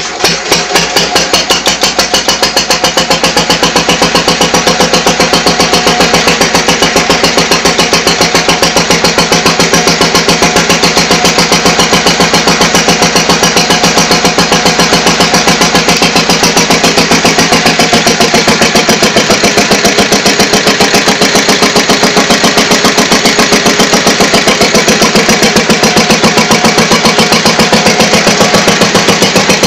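1964 Lister 2 hp stationary engine of a sheep-shearing set catching right at the start and then running steadily at its governed speed of about 1000 rpm, with a fast, even firing beat.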